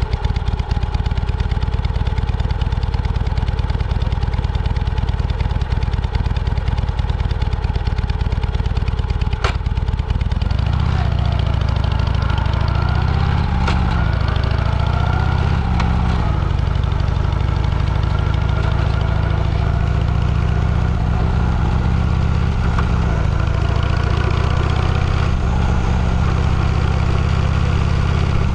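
Vehicle engine running steadily, then louder from about ten seconds in, its pitch rising and falling as it is driven through the gears. A sharp click sounds just before the change.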